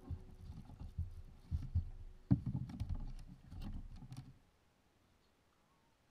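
Irregular knocks, clicks and rubbing of fishing tackle being handled aboard a sea kayak. They stop about two-thirds of the way through, leaving near silence.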